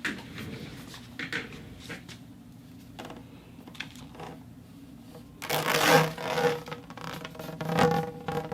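Light scattered taps and clicks, then about five and a half seconds in a much louder metallic rattling with steady ringing tones, typical of metal conduit and a steel ball being knocked and rattled together.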